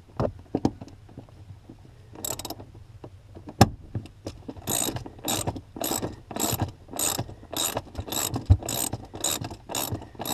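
Hand ratchet wrench with a socket snugging down a seat-mounting bolt. A few scattered clicks at first, then from about halfway in steady back-and-forth ratcheting, about two runs of pawl clicks a second.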